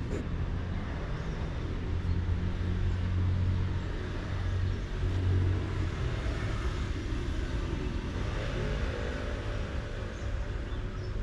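Motor vehicle engine hum with traffic noise. The low hum grows louder about two seconds in and eases off after about six seconds, as a vehicle passes.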